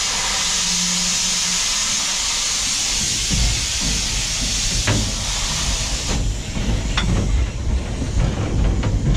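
Steam locomotive giving off a loud, steady hiss of steam that cuts off suddenly about six seconds in. From about three seconds in, a low rumble with a few sharp knocks and clanks.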